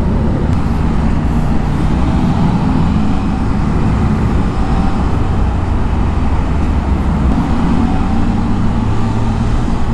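Motorcycle engine running steadily on the move in traffic, with continuous road and wind noise.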